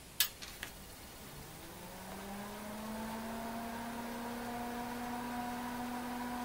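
Tektronix TDS 340 digital oscilloscope switched back on: a sharp click and two lighter clicks, then its cooling fan spins up, rising in pitch for about a second and settling into a steady hum.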